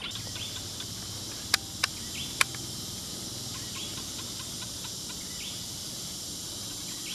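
Insects droning steadily at a high pitch, with short bird chirps scattered throughout. Three sharp clicks about a second and a half, two seconds and two and a half seconds in.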